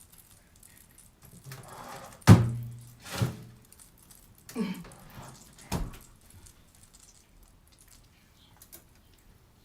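Kitchen handling noise: one loud thunk with a short low ring about two seconds in, then three lighter knocks over the next few seconds, as things are put down and moved about.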